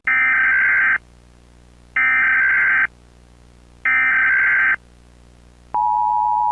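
Emergency Alert System header: three bursts of SAME digital data tones, each about a second long with a second's gap between them, followed near the end by the steady EAS attention signal tone.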